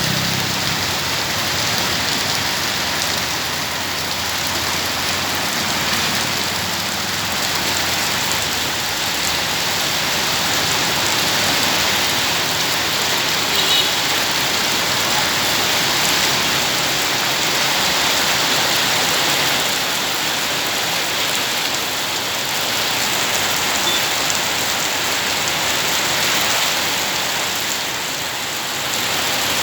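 Steady rain falling and pattering on surfaces, an even, continuous hiss.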